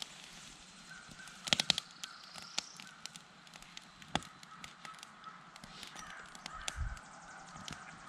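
Wood fire crackling in a metal fire pit, with scattered sharp pops, a loud cluster about a second and a half in, over faint bird calls.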